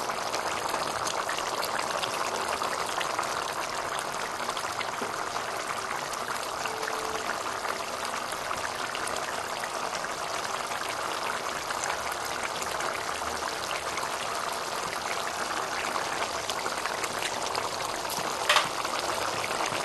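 Potato curry gravy simmering and bubbling in a nonstick pan as raw duck eggs sit cooking in it, a steady bubbling hiss, with a sharp click near the end.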